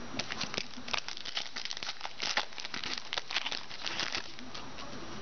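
Foil wrapper of a football card pack being torn open and crinkled, a dense crackling that stops about four seconds in.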